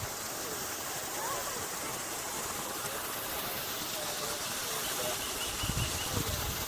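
Steady rush of running water from a garden stream or cascade, with faint distant voices, and a few low thuds near the end.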